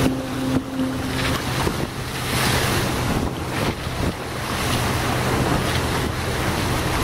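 Wind buffeting the microphone over rushing, splashing water as a sandeq outrigger sailing canoe cuts through choppy sea, with spray off the outrigger floats. Under it runs the steady drone of an accompanying RIB's outboard motor, whose higher tone drops away about a second in.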